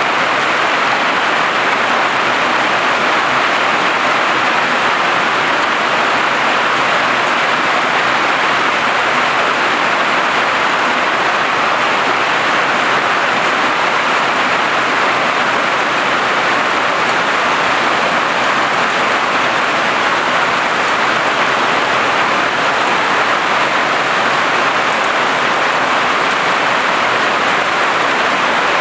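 Heavy hail drumming on a tin roof: a dense, steady, unbroken clatter of countless small impacts.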